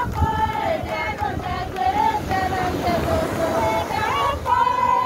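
A high voice singing a slow chant-like melody, with long held notes that slide from pitch to pitch, over a steady low rumble.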